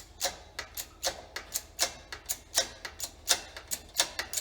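Sharp metallic clicking, about three to four clicks a second, as a shop press forces the pulley off a Ford 8600 tractor's water pump shaft.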